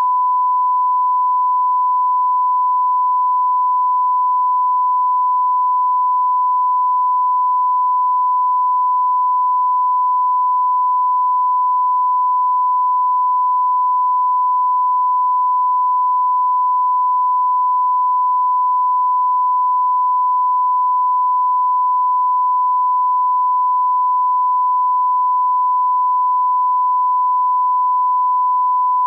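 Steady 1 kHz reference tone, a single pure sine tone held unbroken at constant level. It is the line-up tone that plays with colour bars and is used to set audio levels on a programme tape.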